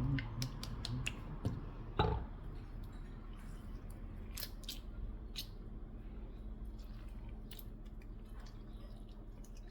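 Scattered light clicks of cutlery against a plate, with one louder knock about two seconds in, over a low steady hum.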